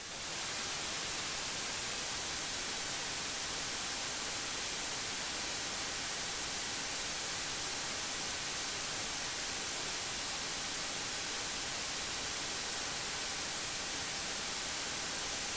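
Steady, even hiss with no other sound in it, strongest in the high end, like the recording's own electronic noise with the gain turned up. It fades in over the first half second and then holds level.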